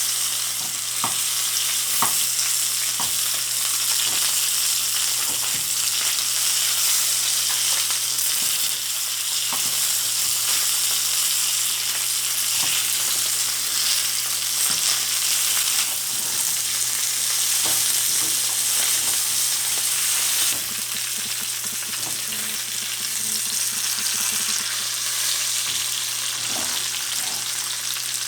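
Whole tilapia shallow-frying in cooking oil in a pan: a steady sizzle with scattered pops and crackles, easing slightly about two-thirds of the way through.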